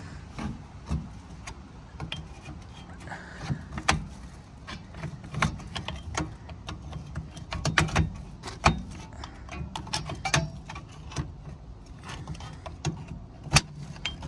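A long steel pry bar working against a rusty rear drum brake assembly: irregular metallic clicks, knocks and scrapes as a part is levered and worked out of the backing plate, with a few sharper clanks about four, eight and thirteen seconds in.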